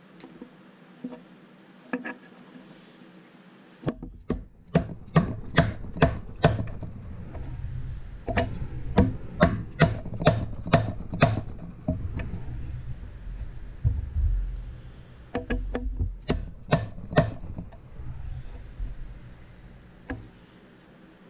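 Mallet blows on a setting tool, driving new detent caps into their bores on the top of a BMW ZF five-speed transmission case. The blows come in three runs of quick strikes, about two or three a second, with short pauses and handling noise between.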